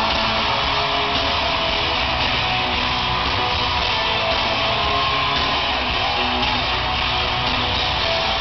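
Live pop-rock band playing loudly at an arena concert, with electric guitar strumming over bass and drums, heard from the audience.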